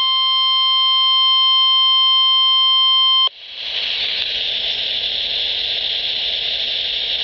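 Emergency Alert System attention tone for a tornado warning: one steady, slightly distorted alarm tone that cuts off suddenly about three seconds in. Steady broadcast hiss follows until the spoken warning begins.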